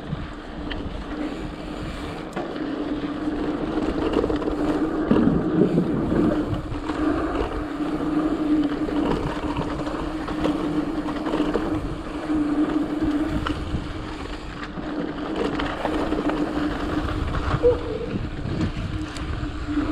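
Giant Stance mountain bike rolling along a dirt trail: tyre noise and small rattles over the ground, with a steady buzzing hum that swells a few seconds in.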